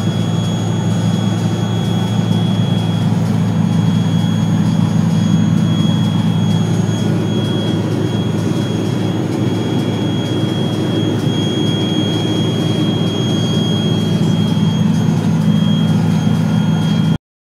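Hovercraft engine and propulsion fan running steadily at speed, heard from aboard: a loud, even drone with a thin high whine on top. It cuts off suddenly near the end.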